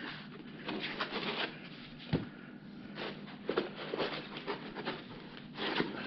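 Hands rubbing and pulling packing foam and items out of a cardboard shipping box, a run of short scrapes and rustles with a single knock about two seconds in.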